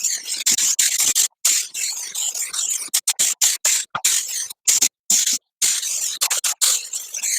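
Compressed-air paint spray gun (a Harbor Freight gun) hissing in short bursts as paint is sprayed, cutting in and out abruptly many times.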